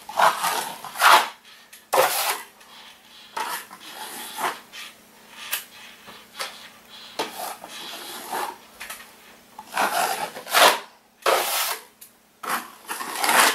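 Steel drywall taping knife scraping and spreading joint compound in repeated strokes, each about half a second to a second long, some much louder than others, as an old ceiling patch is skimmed with mud.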